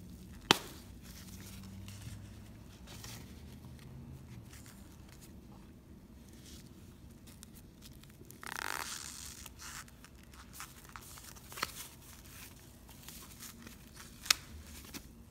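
Thin foam packaging sheet rustling and crinkling as it is handled and pulled off and out of a new wallet. A longer, louder rustle comes about halfway through. A few sharp clicks stand out, the loudest within the first second.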